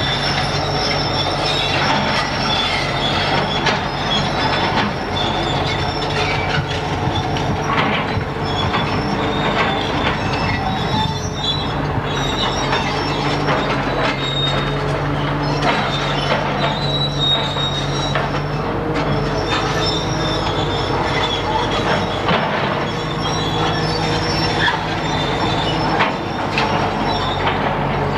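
Heavy diesel earth-moving machine running steadily, with a low engine drone and repeated metal clanks and high-pitched metal squeals throughout.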